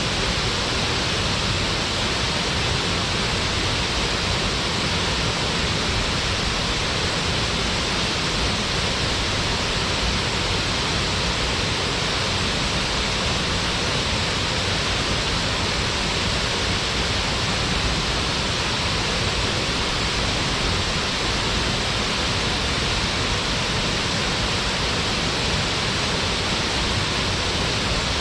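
Yazawa Falls pouring and splashing in a steady, unbroken rush of water.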